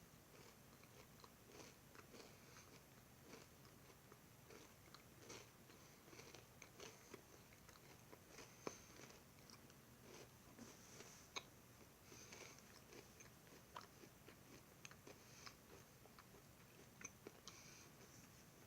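Faint chewing and crunching of a granola cup filled with almond butter, with many small irregular crunches.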